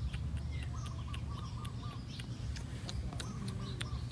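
Two short runs of quavering bird chirps, about half a second in and again about three seconds in, over scattered sharp clicks and a steady low rumble.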